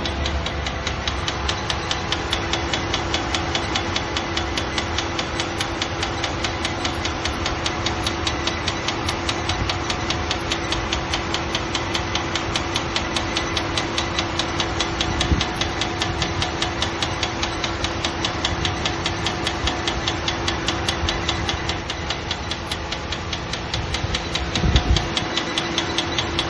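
Car engine idling with a fast, even ticking from the engine bay, a new tick whose cause the owner does not know. A couple of brief low thumps about halfway through and near the end.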